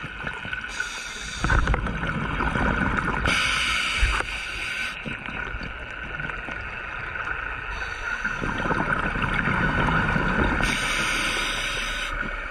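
Scuba diver breathing through a regulator underwater: short hisses on the inhalations and two long rumbling, bubbling exhalations.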